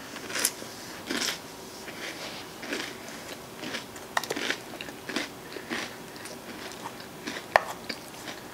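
Close-miked eating: chewing and smacking on mouthfuls of ice cream sundae with crunchy cookie and chocolate toppings, with a couple of sharp clicks as the metal spoon scoops in the plastic bowl.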